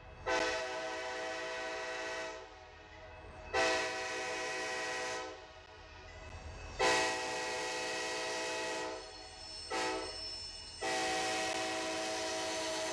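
Kansas City Southern diesel locomotive's air horn blowing for a grade crossing: three long blasts, then a short one, then a long one that is still sounding at the end. The last four form the standard long-long-short-long crossing signal. Each blast is a chord of several steady tones over the low rumble of the passing train.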